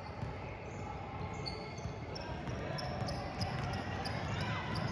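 Basketball game sounds on a hardwood gym floor: sneakers squeaking in many short chirps and a ball bouncing as players run up the court, over a low hum of the gym.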